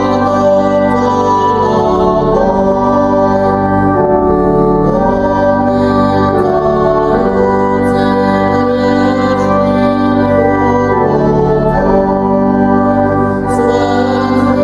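Organ playing slow, sustained chords that change every second or two: the postlude after the closing blessing of the service.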